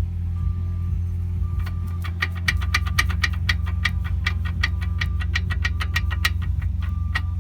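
Seat Leon brake clicking fast and evenly, about five ticks a second, starting about one and a half seconds in, over the steady low hum of the car. Short repeated electronic beeps sound alongside. The noise persists although the brake parts are all new.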